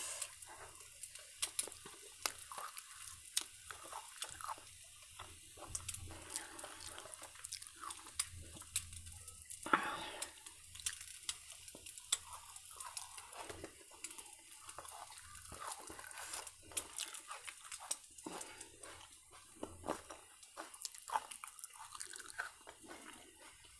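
Chewing and crunching of crisp dosa eaten close to the microphone: many small, sharp, irregular clicks and crunches, fairly quiet.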